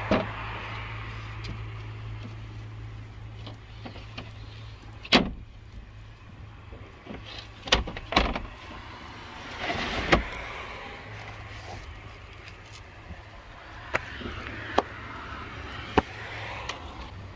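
Wooden knocks and clunks of a campervan's hinged, perforated bed-platform boards and cushions being folded up and moved, a handful of separate hits with the loudest about five and eight seconds in, and a few sharp clicks near the end, over a steady low hum.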